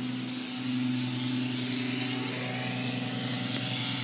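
A machine spraying something into the air: a motor hums steadily under a hiss of spray that grows louder after a second or so.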